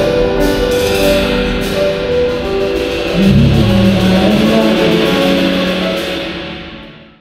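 Instrumental music playing, then fading out over the last second or so.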